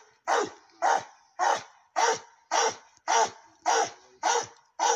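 Hog-hunting bay dog baying at penned hogs: a steady run of evenly spaced barks, nearly two a second, the dog holding the pigs at bay.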